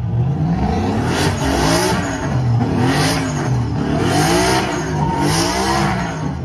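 Car engine revving up and down about once a second while doing donuts, its tires spinning on the pit surface. A hiss swells with each rev.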